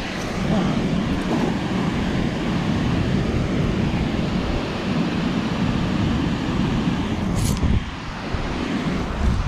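Steady rush of water pouring through a dam spillway, with wind buffeting the microphone. A short splash-like hiss comes about seven and a half seconds in, as the thrown cast net lands on the water.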